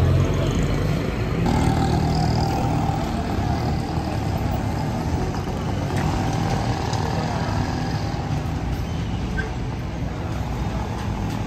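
Street traffic: motor vehicle engines running close by, with a steady whine from about a second and a half in until about eight seconds in.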